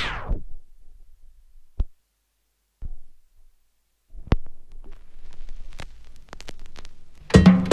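Music from a 45 rpm vinyl single slides down in pitch and dies away as the Technics direct-drive turntable is stopped, then a few sharp clicks from handling the record and dropping the stylus. Faint surface crackle with small ticks from the lead-in groove follows for about three seconds before the next song starts near the end.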